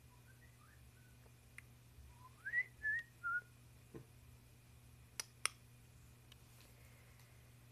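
Soft whistling: a few faint short notes, then a rising whistled note followed by two shorter held notes, the last one lower. Two sharp clicks come a couple of seconds later.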